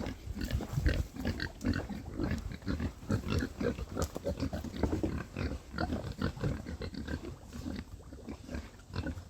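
Several pigs grunting and snuffling in short, irregular bursts that come thick and fast.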